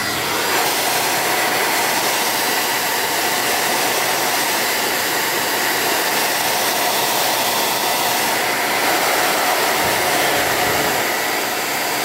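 John Frieda hair dryer running on high, a steady rush of blown air with a faint whine from its motor.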